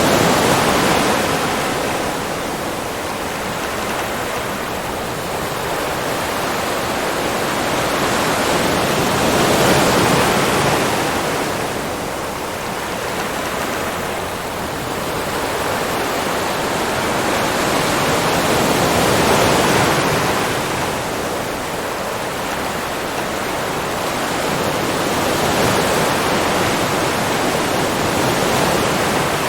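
Ocean waves washing onto the shore, a continuous rush of surf that swells and fades slowly, building to a crest about every ten seconds.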